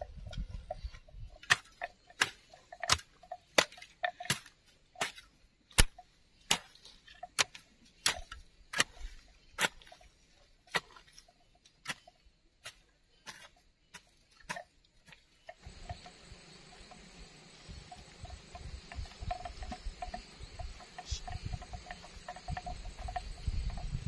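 A hand hoe chopping into earth, a sharp strike about every 0.7 seconds in a steady rhythm. About two thirds of the way through, the chopping gives way to a steady outdoor hiss with low thuds.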